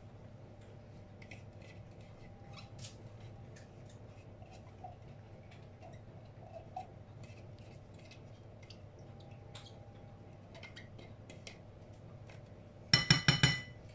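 A spatula scraping purée out of a mini chopper bowl over a glass mixing bowl: faint scrapes and small clicks. About a second before the end comes a short burst of loud clinking and knocking against glass.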